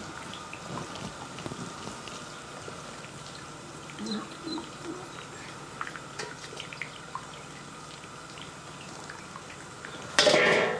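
Faint background with scattered small clicks, then about ten seconds in a sudden, loud, short splash as a hooked fish is jerked up through the well water on a fishing line.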